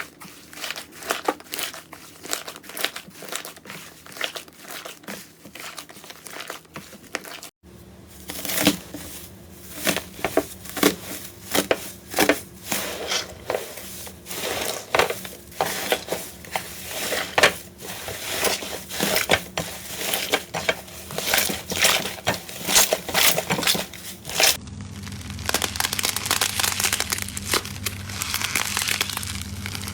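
Slime being squeezed, poked and pressed by hand, giving rapid runs of sticky, crackling pops and clicks. The sound changes abruptly twice, about a quarter of the way in and again near the end, where the crackling turns denser and more continuous.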